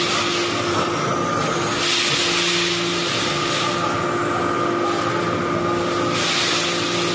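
Hydraulic metal sawdust briquetting press running: a steady machine hum with a constant whine, and two longer surges of hiss, about two seconds in and again about six seconds in.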